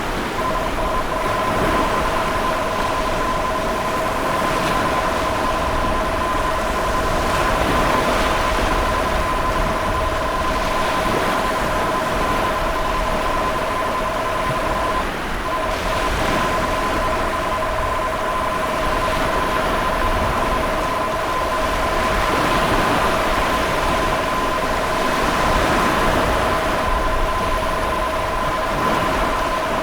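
Emergency alert attention tone: two steady pitches sounding together, broken off briefly about halfway, over the loud rushing of ocean waves swelling and receding every few seconds.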